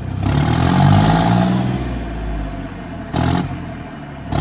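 John Deere 5305 tractor's diesel engine revved up once and dropping back toward idle through a new straight steel silencer, with a turbo whistle over the rise; a short second blip of throttle about three seconds in.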